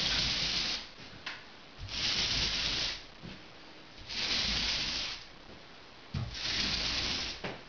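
Paint roller on an extension pole rolling wet paint across a plaster ceiling in the final finishing pass: four strokes about two seconds apart, each a hiss lasting about a second.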